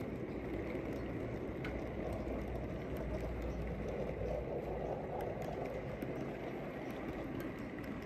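Model railway wagons of an engineer's train with a breakdown crane rolling past on the track: a steady running noise of wheels on rails, with faint light ticks.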